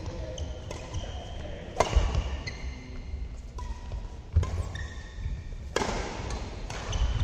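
Badminton rally: several sharp racket strikes on the shuttlecock a second or two apart, the strongest about 2, 4.5 and 6 seconds in, with brief squeaks of court shoes and footfalls thudding on the court floor in between.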